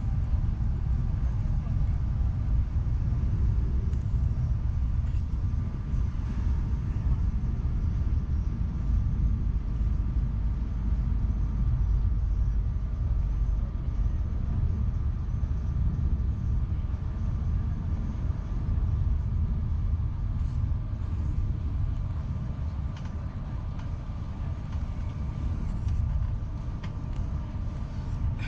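Class 395 Javelin electric high-speed train running at speed, heard from inside the carriage as a steady low rumble with a faint constant high tone above it.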